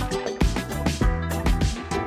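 Background music with a beat and sustained low notes.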